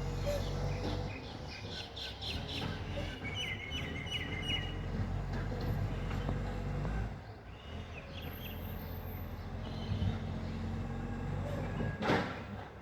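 A bird chirps a quick run of about five falling notes over the low, steady rumble of a garbage truck's diesel engine, with a short noisy burst near the end.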